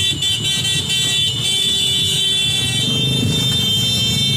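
Motorcycle and scooter horns honking in a long held blast over the steady running of many small motorcycle engines.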